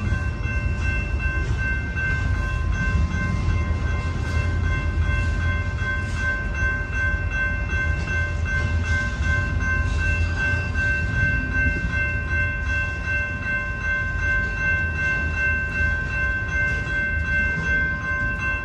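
BNSF manifest freight train rolling past, a heavy, steady low rumble from the cars, with several steady high ringing tones sounding over it.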